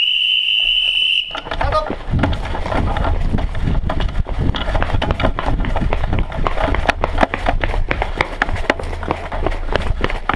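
A steady high beep for about a second and a half. Then the quick footfalls of a running airsoft player, with gear and rifle rattling, over a low rumble of wind and handling noise on the rifle-mounted camera.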